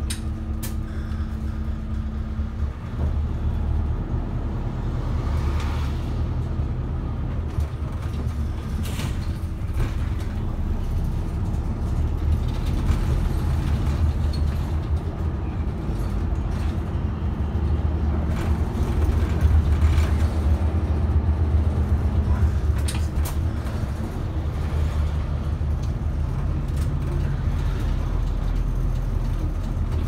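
Cabin noise of a moving diesel route bus: the engine and road rumble run continuously, the engine note rising and falling with speed and loudest a little past halfway. A few sharp clicks or rattles from the bus's fittings are heard now and then.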